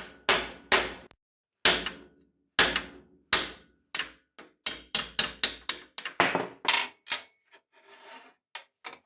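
Hammer blows driving out the pin that joins two parts of an early-1960s Handyman jack: about twenty sharp metal-on-metal strikes, each with a short ring, spaced apart at first and quickening around the middle. Near the end come a brief scrape and a few lighter taps.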